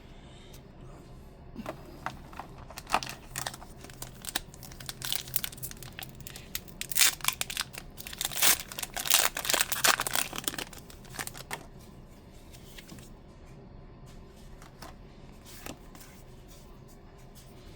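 Foil wrapper of a Pokémon trading card booster pack being torn open and crinkled, a run of sharp crackles that is densest in the middle and dies away after about eleven seconds.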